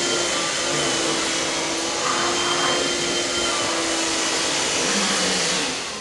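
Handheld vacuum cleaner running steadily with a constant motor hum as it is drawn over a pug's coat, then winding down just before the end.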